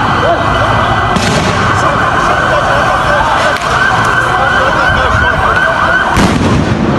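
Loud street commotion during a riot, with several sirens warbling rapidly over one another above a constant din. Two brief loud bursts of noise come about a second in and again about six seconds in.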